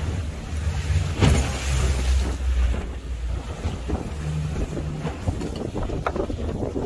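Open fishing boat running through choppy sea: wind buffeting the microphone over a steady low rumble, with the hull slapping and splashing through the waves, most sharply about a second in.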